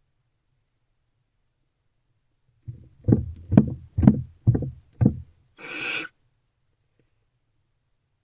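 Five heavy thumps on the wooden barn owl nest box, about half a second apart, then one short barn owl hiss lasting about half a second.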